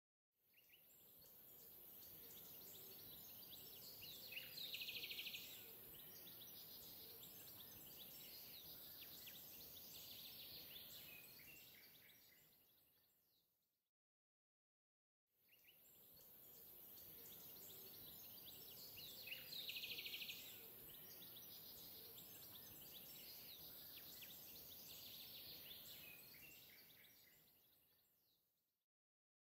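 Faint background ambience: a steady hiss with a few bird chirps. The same roughly 14-second stretch plays twice, each fading in and out.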